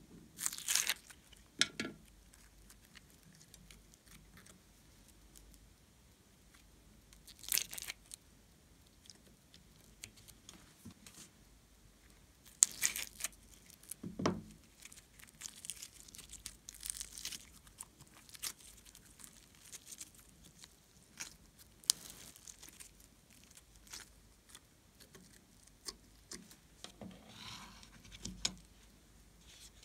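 Foam-bead clay crackling and crunching as pieces are peeled out of plastic molds and pressed onto slime, in scattered bursts with quieter handling in between.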